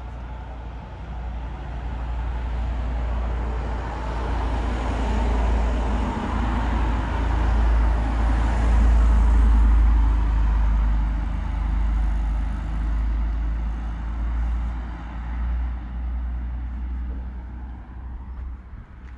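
A motor vehicle's engine and tyres passing on the street, growing louder to a peak about halfway through and then fading away.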